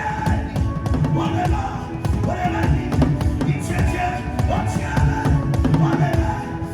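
Drumming: a fast, dense, steady rhythm of deep drum strokes with short pitched tones over them.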